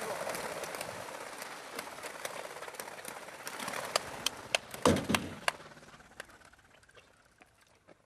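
Chukar partridges flushing from crates, a whirring flutter of many wingbeats with sharp clicks. A run of louder clicks and a thump comes about four to five seconds in, then the flutter fades away.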